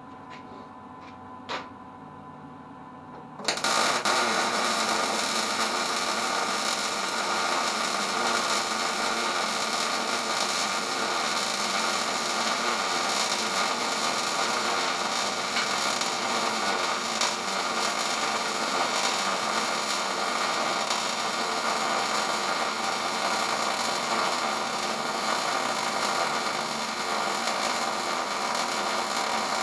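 Welding arc struck about 3.5 s in, then burning steadily as a bead is laid on angle iron. It makes a loud, even crackling hiss with no change in pitch. Just before the arc strikes there is a single click.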